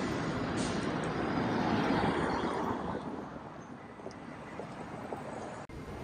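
City street traffic noise: a vehicle passes, growing louder to about two seconds in and then fading away.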